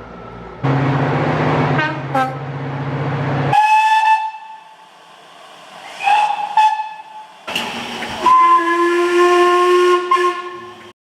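Train horns sounding in a run of short clips cut together. After a hissing passage with a low hum, two short single-pitch blasts come about two seconds apart, then a longer chord of several notes sounds for about three seconds and cuts off abruptly.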